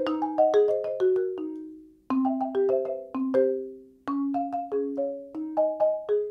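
Marimba played with four yarn mallets: quick runs of struck notes in short phrases. Twice, about two and four seconds in, the notes ring out and die away before the next phrase starts.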